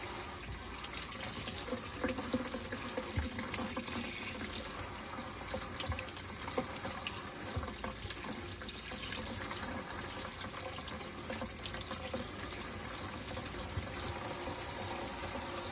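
Water running steadily from a tap into a sink, with small ticks and splashes: the copper-plated glass piece being rinsed.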